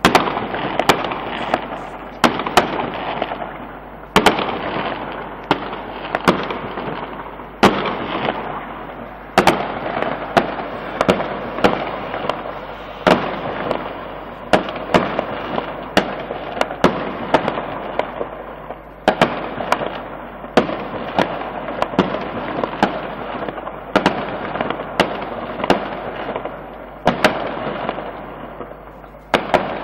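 Aerial fireworks going off, a steady run of sharp bangs every second or two, each trailing off into an echoing crackle.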